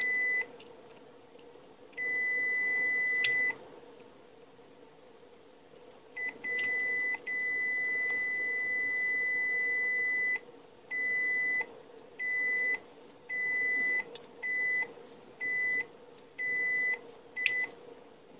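Continuity buzzer of a Uni-T UT71C digital multimeter beeping each time the test probe makes contact through a bolt and a clip lead, with the meter reading near zero ohms. About a dozen steady high beeps of uneven length, from short blips to one held for about three seconds, with a click or two from the probe tips.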